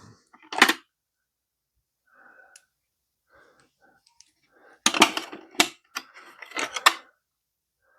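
Small metal hand tools clinking and rattling as they are picked up and handled, with a busier run of sharp clinks about five seconds in.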